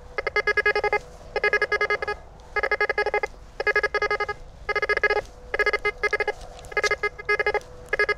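Golden Mask Coin Killer metal detector with a 9-inch Spider coil beeping in one-tone mode as the coil is swept over a line of coins among nails. Each sweep gives a stuttering burst of quick beeps about half a second long, roughly once a second. The nails are discriminated out, so the beeps mark the coins.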